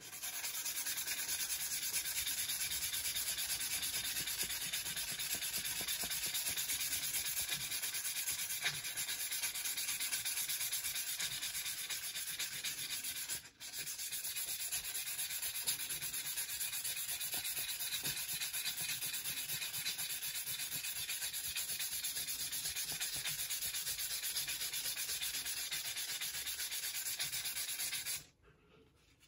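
Sandpaper rubbed back and forth by hand over the rusty metal face of a small anvil, a steady scratchy hiss that removes the rust coating. It breaks off briefly about halfway through and stops shortly before the end.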